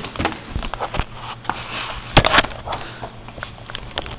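Rustling and rubbing handling noise with scattered sharp clicks and knocks, a small cluster of louder knocks about two seconds in, from a handheld camera being moved about.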